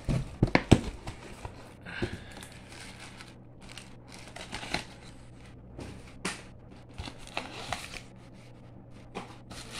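Paper wrapping and black plastic bags rustling and crinkling as they are pulled back by hand inside a cardboard box. A cluster of sharp crackles comes in the first second, then scattered crinkles.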